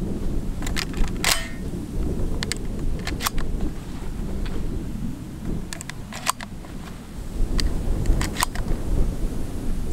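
Strong wind buffeting the microphone as a low, uneven rumble, with about a dozen sharp clicks and snaps scattered through it, several close together about six seconds in and again around eight seconds.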